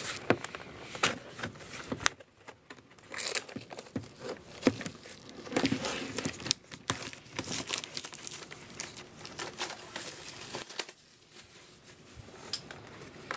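Plastic wrapping on a cardboard trading-card collection box crinkling and tearing as the box is unwrapped and opened, in a run of irregular crackles and rustles that eases briefly near the end.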